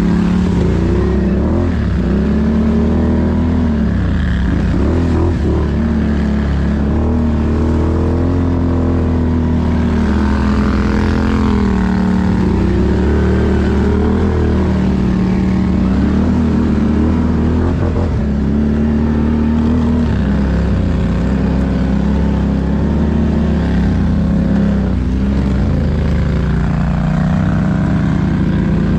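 ATV engine running on the trail, its pitch rising and falling with the throttle.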